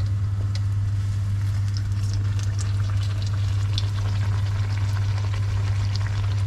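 Tempura-battered eggplant slice deep-frying in hot oil: a steady sizzle with dense fine crackling. A strong steady low hum runs underneath.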